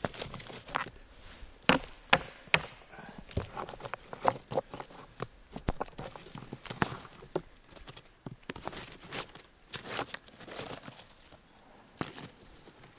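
Hatchet chopping into a log to hollow it into a trough: irregular sharp strikes of the blade on wood, with chunks split off and knocked loose.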